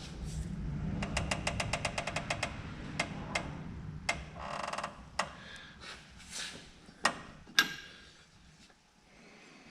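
Hand tools on a Jeep JKU axle's pinion nut while the pinion bearing preload is being set: a quick run of about ten ratchet clicks, then scattered metal clinks and knocks, with two sharper clinks near the end.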